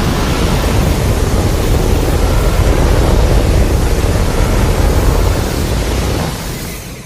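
A sound effect for a Godzilla-style monster: a loud, steady rushing roar of noise with a heavy low rumble, fading out near the end.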